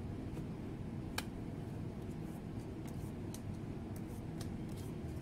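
Tarot cards being cut and laid down on a glass tabletop: a scatter of light taps and clicks, one sharper click about a second in, over a steady low hum.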